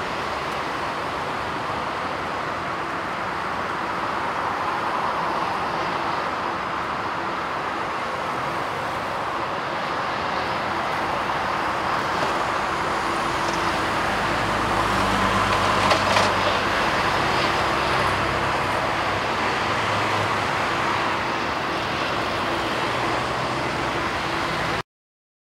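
Airbus A380-841's four Rolls-Royce Trent 970 turbofans at takeoff thrust, a steady jet noise as the airliner rolls and lifts off. It grows louder, with a deep low rumble joining past the middle, and cuts off suddenly near the end.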